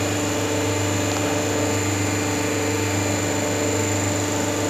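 Hydraulic paper plate making machine running, its motor and hydraulic pump giving a steady hum.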